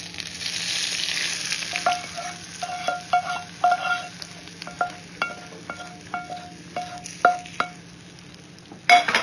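Hot mustard-oil tadka with cumin and dried chillies poured onto cold yogurt raita: a loud sizzling hiss for the first two seconds, then a string of short crackling pops and ticks that thin out. One loud knock near the end.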